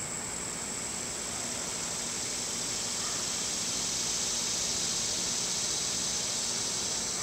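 A steady, high-pitched insect chorus, an even buzzing hiss that swells a little through the middle.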